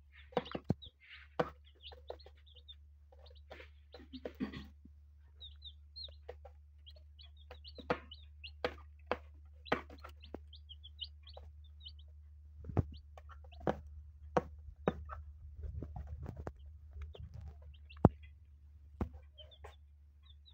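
Newly hatched chicks peeping softly while they and their hen peck grain off a plastic lid, with beaks tapping sharply and irregularly on the plastic. A steady low hum runs underneath.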